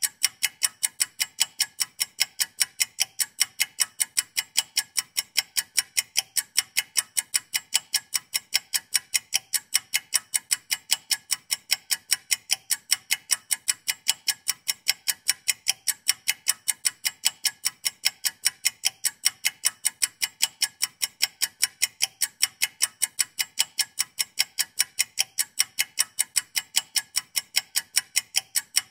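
Clock ticking in a fast, perfectly even rhythm of sharp, high ticks, counting down a two-minute puzzle timer.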